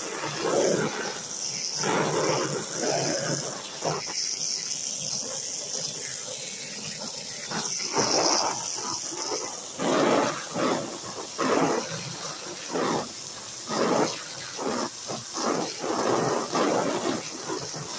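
Water sprayed onto cloth car seat cushions, splashing in uneven bursts over a steady high hiss; the bursts come quicker in the second half.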